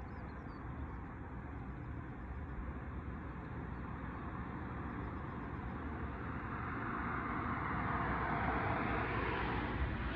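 Distant motor noise: a steady rumble and hiss that swells louder over the last few seconds.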